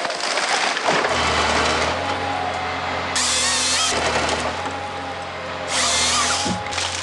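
Forestry harvester at work: its engine and hydraulics run steadily while the harvester head feeds a log through. Two loud, high-pitched bursts of the head's saw cutting come about three seconds in and again near six seconds.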